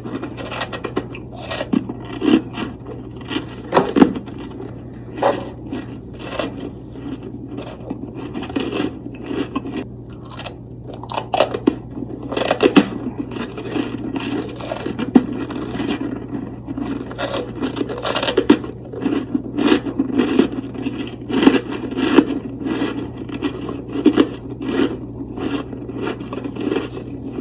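Freezer frost crunched and chewed close to the microphone, a dense run of irregular soft crunches and scrapes.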